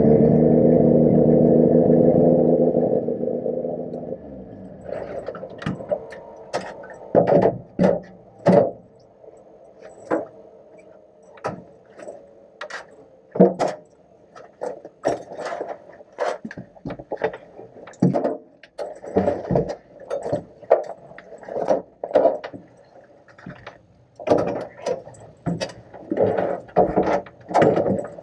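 Supercharged engine of a Volvo 122 race car running steadily, heard from inside the stripped cabin, dying away about four seconds in. After that come irregular clicks, knocks and rattles from the cockpit as the driver moves about.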